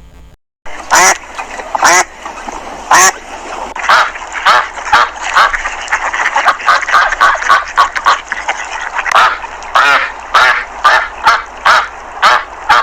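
Geese honking: a long run of short, repeated calls, several birds at once, the calls crowding together and overlapping in the middle.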